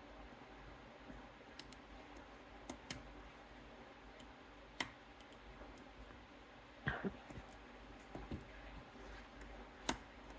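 Faint, irregular metallic clicks of lock picking: a pick and tension wrench working the pin stacks of a Goal Z seven-pin pin-tumbler lock, with about seven separate clicks, two close together a little before the end.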